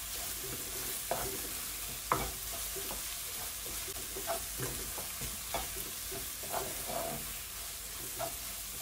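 Onion and curry-powder mixture frying in oil in a nonstick wok with a steady sizzle, while a wooden spoon stirs it, scraping and tapping against the pan about once a second.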